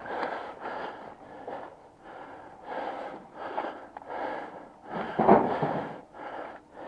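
A person's heavy, fast breathing close to the microphone, about one breath every 0.7 seconds. About five seconds in there is one louder noise.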